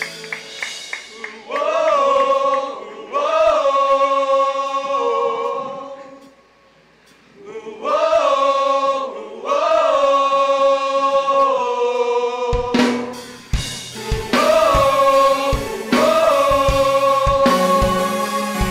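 Mixed choir singing a slow worship song in long held chords, each phrase opening with a rising swoop. There is a short silent break just before the middle. A drum kit comes in about two-thirds of the way through, with kick drum and cymbal hits under the choir.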